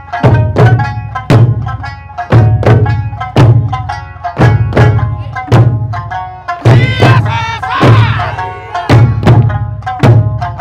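Eisa ōdaiko, large barrel drums struck with sticks by a troupe in unison, in a steady rhythm of heavy strokes, over an Okinawan folk song with singing.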